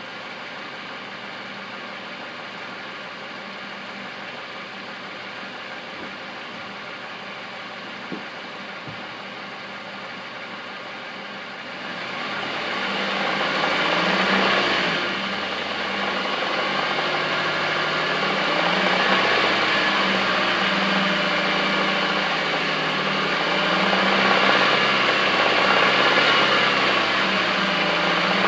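2015 Nissan Micra's HR16DE 1.6-litre four-cylinder engine, warm and in park, idling steadily, then revved at about twelve seconds in and held at a raised speed, around 2000 rpm. At that speed it knocks, a jackhammer-like sound that the owner suspects of a bad bearing.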